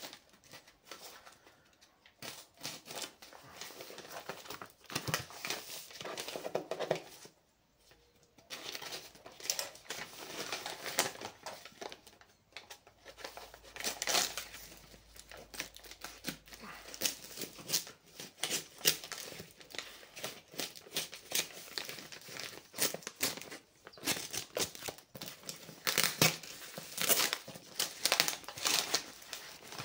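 Brown wrapping paper and packing tape on a parcel crinkling and tearing as it is cut open with a small knife and pulled off by hand, in irregular rustles and rips, with a short pause about eight seconds in.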